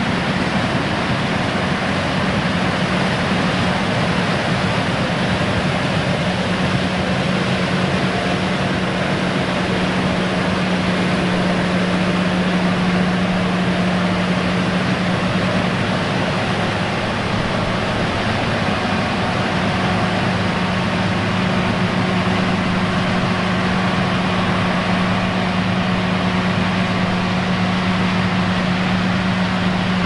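John Deere 7750 self-propelled forage harvester running steadily while chopping ear corn. A constant engine hum sits over a broad rushing noise.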